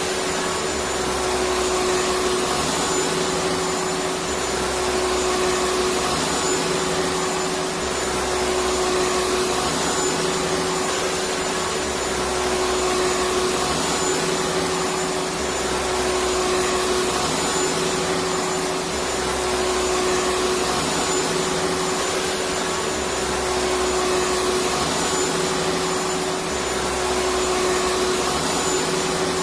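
Electric vacuum cleaner running steadily: a continuous motor hum and airflow noise with one steady tone through it. The low rumble swells and fades in a slow, regular cycle every few seconds.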